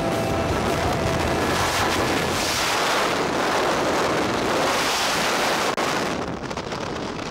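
Freefall wind rushing over a helmet camera's microphone, a loud steady roar of air that turns duller near the end.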